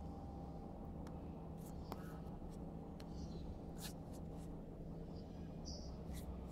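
Faint scraping and light ticks of an acrylic back plate being slid along the channel of an aluminium phone bumper frame and handled, over a steady low hum.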